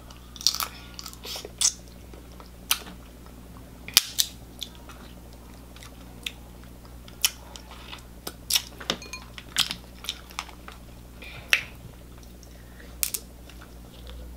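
Close-up eating sounds of a seafood boil: crab leg shells cracking and snapping in the hands, with mouth clicks and smacks while eating crab meat. The sharp cracks come irregularly, a few to several seconds apart.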